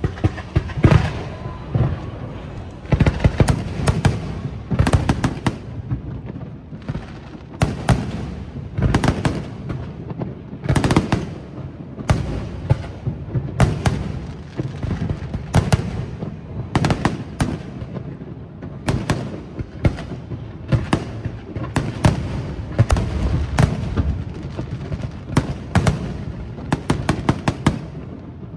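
Fireworks display: a continuous barrage of aerial shell bursts and crackling bangs going off in quick clusters, with echoing booms between them.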